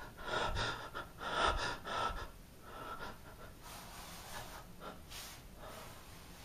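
A person gasping and breathing hard in quick, short breaths, loudest in the first two seconds, then softer and slower.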